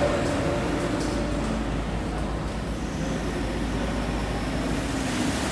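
Wacker Neuson TH412 telehandler's diesel engine running steadily while it works its bucket, tipping a load of concrete.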